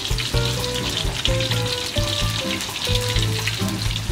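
Freshly boiled tofu frying in hot oil: a steady sizzle with fine crackling. Background music with a low bass line and a stepping melody plays under it.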